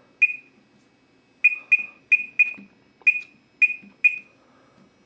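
Keypad of a GENT Vigilon fire alarm control panel beeping as buttons are pressed: eight short high beeps at irregular intervals, each starting with a click and dying away quickly.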